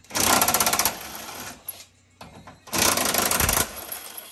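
Cordless impact wrench hammering at a bolt on a car's front crash-bar mounting through a long socket extension, in two bursts of rapid rattling, the second about three seconds in.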